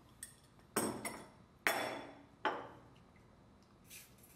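Metal tools and pipe fittings clinking on a workbench: about four sharp clinks with short ringing as an adjustable wrench is put down and steel fittings are picked up. A brief hiss near the end as primer is sprayed onto an elbow fitting.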